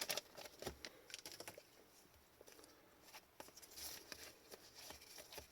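Faint rustling and light, scattered ticks of trading cards being handled and slid against one another.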